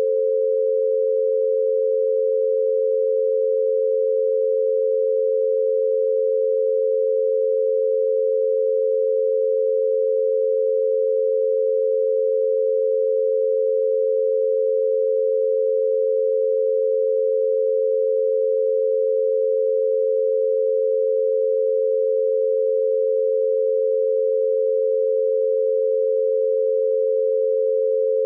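Binaural beat at 88 Hz: two steady pure tones near 500 Hz, 88 Hz apart, one meant for each ear over headphones, held unchanged throughout.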